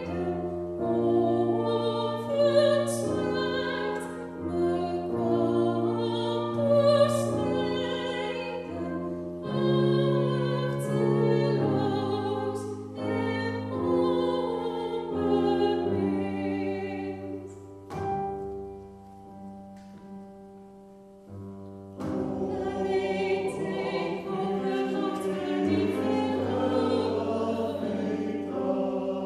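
Live choir-and-combo music: a female soloist sings into a microphone over sustained choral and instrumental chords. About two-thirds of the way through, the music drops to a quiet held passage, then the full sound returns.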